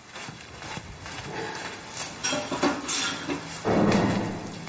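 Dishes and kitchenware clinking and knocking lightly a few times, followed near the end by a louder, longer rush of noise.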